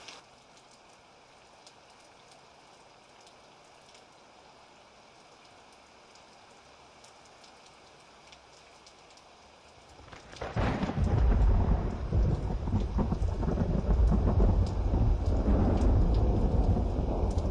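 Steady rain falling, then about ten seconds in a sudden loud thunderclap that rolls on into a long, deep rumble of thunder over the rain.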